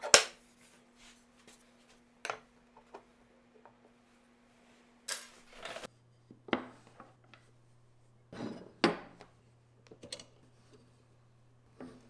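Scattered knocks and clatters of hard objects being handled and set down, about seven in all, the loudest right at the start, with a short scrape about five seconds in.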